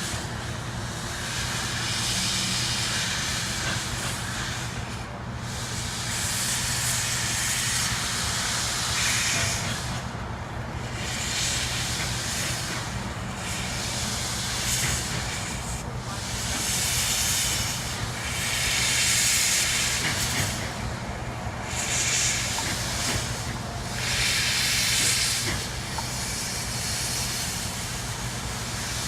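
Steam locomotive hissing steam in repeated surges, each lasting one to three seconds, as it works slowly while shunting, over a steady low hum.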